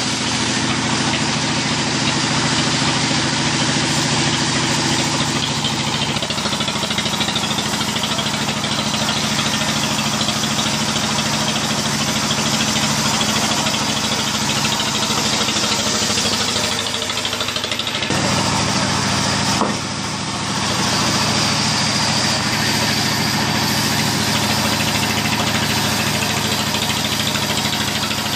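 Sawmill band saw running steadily and cutting through a log as it is pushed along the carriage, with the continuous hum of the machine driving it. The sound shifts in character a couple of times and dips briefly about twenty seconds in.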